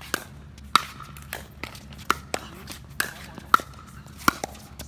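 Pickleball paddles hitting a plastic pickleball in a quick rally: about eight sharp pops with a short ring, a little under two a second, some louder than others.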